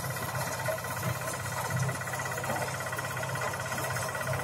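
Engine-driven mini corn-shelling machine running steadily, with a constant hum and a fast even pulsing from its motor.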